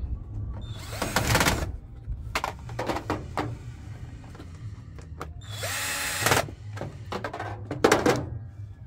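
Makita cordless drill-driver running in three short bursts as it drives screws into a front-loading washing machine's control panel. Sharp clicks and knocks of handling come between the bursts.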